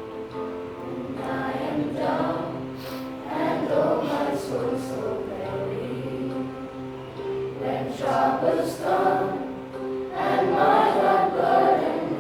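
A class of students singing a prayer song together as a choir.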